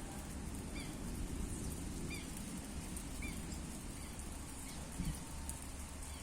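A bird giving short, repeated chirps about once a second over a steady low background noise.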